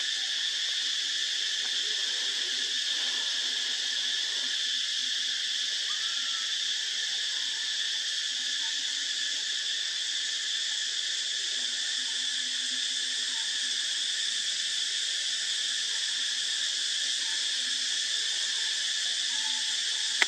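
Steady, dense high-pitched insect chorus that holds at an even level, with faint small chirps beneath it now and then.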